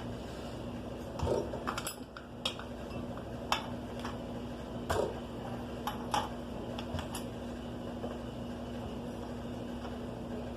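Scattered clinks and knocks of metal tools and engine parts being handled, about eight in all, over a steady low background hum.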